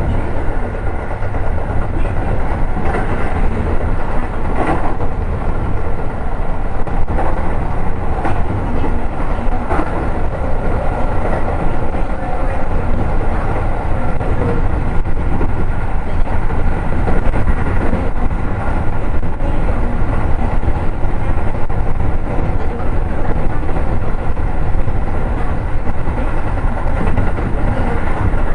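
Running noise heard inside a Keio 7000 series electric train car at speed: a steady, heavy rumble of wheels on rail with a few faint knocks.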